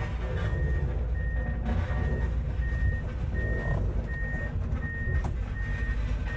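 Excavator's travel alarm beeping steadily, about one beep every three-quarters of a second, over the low running of its diesel engine as the machine tracks down off a lowboy trailer.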